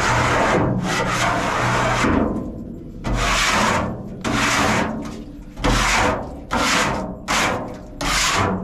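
Repeated rough scraping strokes, about one a second, each starting sharply and tailing off.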